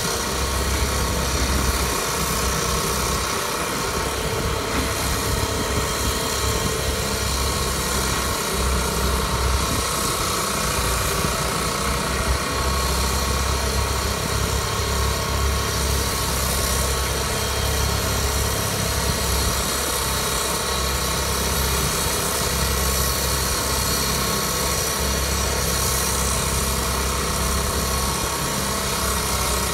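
Diesel engine of a tracked mini excavator running steadily: a low drone at an even level.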